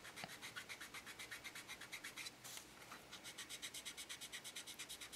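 Small piece of fine sandpaper rubbed quickly back and forth by hand over a painted statue's surface, about seven faint strokes a second with a short break near the middle, smoothing down a rough paint smudge before it is repainted.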